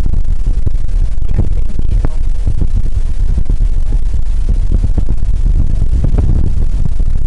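A loud, steady low rumble with scattered faint crackles.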